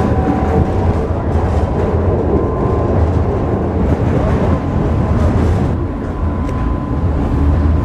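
Tram running, heard from inside the passenger car: a steady low rumble of wheels and running gear, with a thin steady whine over it.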